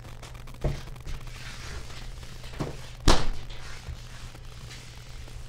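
Three household thuds, the loudest a heavy thunk about three seconds in, over a steady low hum.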